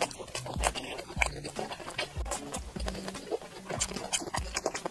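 Close-miked chewing of spicy red-oil hot pot skewer food, with irregular soft wet mouth clicks and low thumps.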